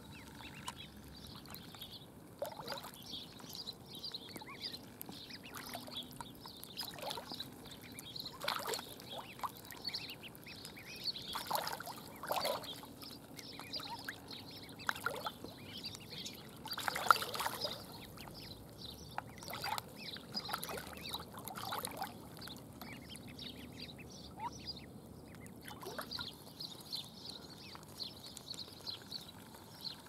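Mallard ducklings peeping continuously in short, high calls, with a few louder, lower sounds from the brood in between, the loudest about seventeen seconds in.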